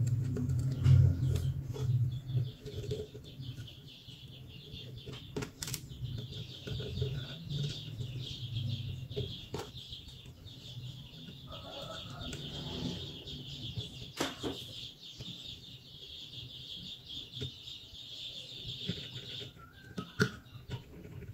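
Small clicks and taps of hand work with a soldering iron on an amplifier's heatsink and transistor leads. A steady high-pitched chirring runs in the background from about two seconds in until shortly before the end.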